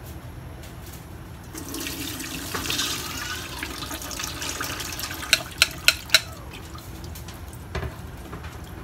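Soaking water from a bowl of sticky rice pouring through a stainless steel mesh colander into a steel sink, a rushing splash for a few seconds. It is followed by four sharp knocks in quick succession, the loudest sounds, and a duller knock near the end.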